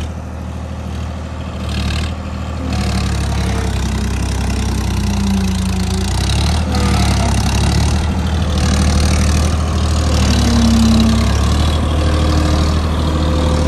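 Swaraj 963 FE tractor's diesel engine running at raised throttle under load, powering the hydraulic backhoe bucket as it digs mud and loads a trolley. The engine gets louder about two seconds in and then holds steady.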